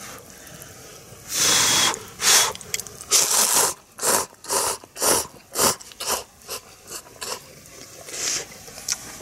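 A person slurping instant cup noodles from chopsticks: one long slurp, then a quick run of shorter slurps and sucking sounds, and a last one near the end.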